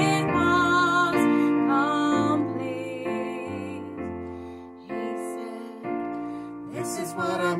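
Piano-led instrumental music, slow and gentle: the introduction to a worship song, with the playing thinning out in the middle and building again near the end.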